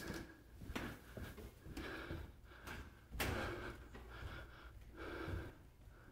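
Breathing of a person climbing stairs: short breaths every second or so, faint.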